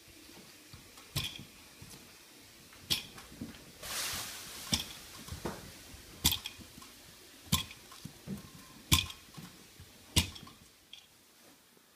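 Loose paper drywall tape being torn off a ceiling seam: a string of short, sharp rips about every second and a half, with one longer tear about four seconds in.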